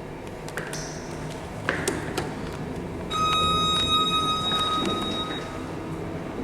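Delta lift-lantern chime sounding one loud, held electronic tone for about two seconds, starting about three seconds in, over a steady lift-lobby hum. A few sharp clicks come before it.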